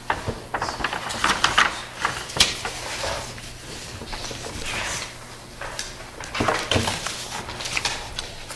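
Sheets of paper rustling and being shuffled on a table, with a few small sharp knocks among them.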